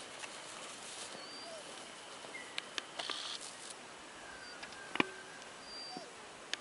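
Faint open-air ambience with scattered short, high chirps and a few sharp clicks.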